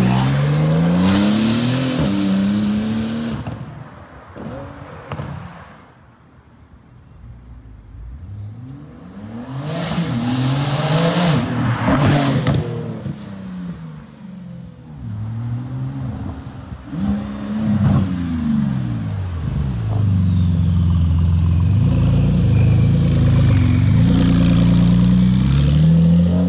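Porsche 911 GT2 RS with a custom exhaust, its 3.8-litre twin-turbo flat-six accelerating away and fading, then revving in several rising and falling pulls as it comes back. It ends with a loud, steady low engine note as it rolls up close.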